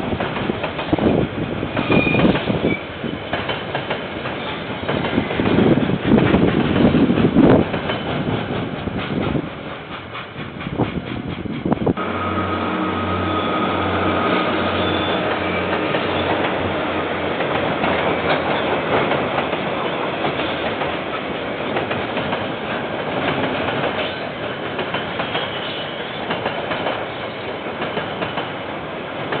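KiwiRail train passing on the line, its wheels clattering over the rail joints. About twelve seconds in the sound changes abruptly to a steadier rumble with a low pulsing hum.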